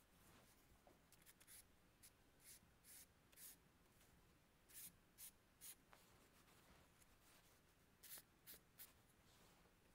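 Faint scratching of a pencil drawing short strokes on textured paper, in quick groups of strokes with pauses between.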